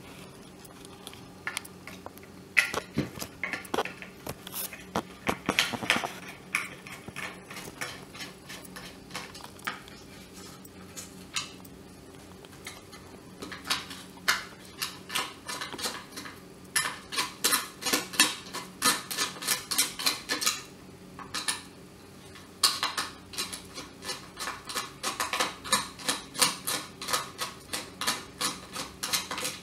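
A hand screwdriver backing screws out of a dry iron's plastic centre plate: quick runs of small clicks and scrapes as the screw turns, with knocks from handling the iron.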